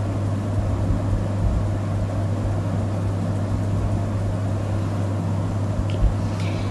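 Room tone: a steady low hum with a soft background hiss, and a faint tick near the end.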